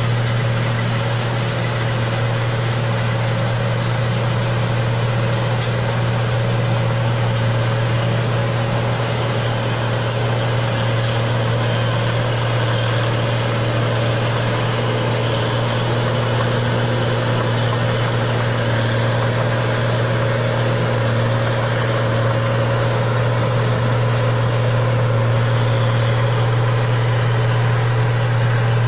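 Engine of a rice-paddy machine running steadily at a constant speed, a loud, even low drone.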